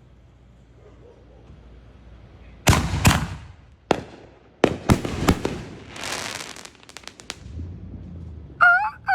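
Consumer fireworks going off: two loud bangs about three seconds in, then a string of sharp cracks and a spell of crackling. Near the end comes a short, high, wavering sound.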